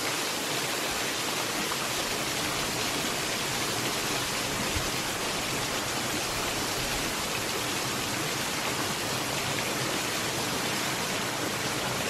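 Steady rushing of water falling over a roughly 12-foot waterfall below a dam spillway, an even hiss at a constant level.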